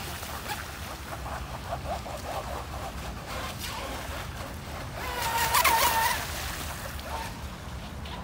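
Radio-controlled model boat running across a pond: a steady motor whine with the hiss of water off its hull, loudest as it passes close about five to six seconds in.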